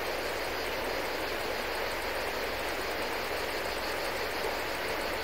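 Steady, even rushing of flowing river water, with no separate knocks or splashes.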